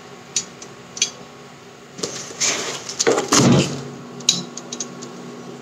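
Induction cooktop running with a pressure cooker on it: a steady low hum that shows it has detected the cooker's base and is heating, with no error beeps. A few light clicks and a louder rustle of handling come about two to three and a half seconds in.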